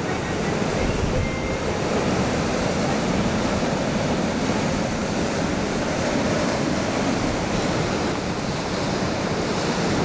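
Ocean surf breaking and washing ashore: a steady, even rushing noise of waves.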